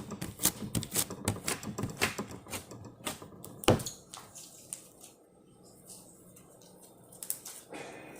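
Quick, irregular sharp clicks and taps, several a second, for about the first half; then it goes much quieter, with a few more clicks near the end.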